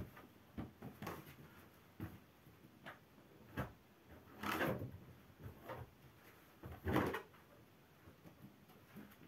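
A string of soft thumps and rustles from bare feet moving on carpet and balloons being handled and set down. The largest are a longer rustle about halfway through and a sharper knock a couple of seconds later.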